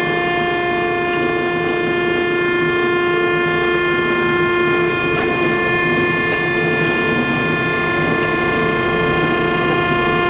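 A 1953 Landis CH hydraulic cylindrical grinder running: a steady whine of several tones over a hum, mostly from its hydraulic unit, with the grinding wheel spinning.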